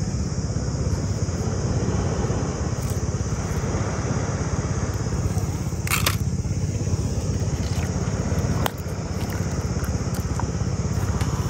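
Steady outdoor background noise with a strong low rumble and a constant hiss, with a short sharp click about six seconds in and another just before nine seconds.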